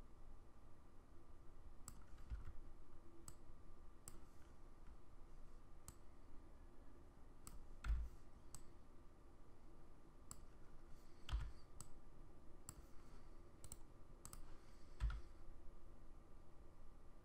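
Irregular, scattered clicks of a computer mouse and keyboard, about a dozen in all, a few of them heavier thuds.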